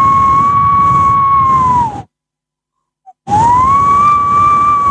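A whistle-like sound effect: a long held high tone that slides up into a steady pitch, with a rushing, breathy noise beneath it. It drops off and stops about two seconds in, and about a second later an almost identical second note starts and is still held at the end.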